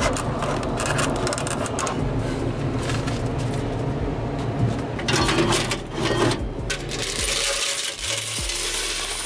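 Coins from a vending machine's cash collection clinking and rattling against each other, many small clicks in quick succession.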